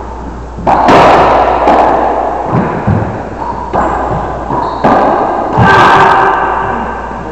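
Racquetball rally: the rubber ball cracking off racquets and the court walls about five times, each hit ringing out in a long echo off the enclosed walls.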